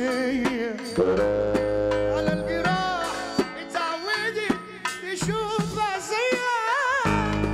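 Egyptian sha'bi wedding music: a wavering, ornamented melody line over steady drum strikes, with a deep bass note coming in near the end.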